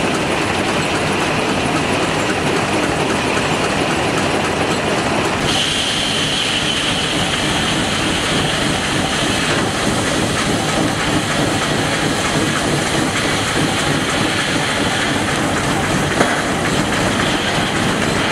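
Rumely 36-120 twin-cylinder steam traction engine running steadily under load, belted to a sawmill. About five seconds in, a high steady whine joins the mix.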